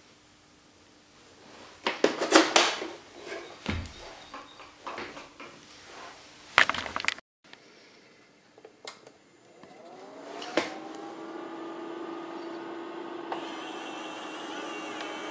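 Knocks and rustles from handling a projector and its bubble-wrap packing. After a cut, a Sony VPL-EX1 projector powers up: its cooling fan spins up as a rising whine about ten seconds in and settles into a steady hum, with a higher tone joining a few seconds later.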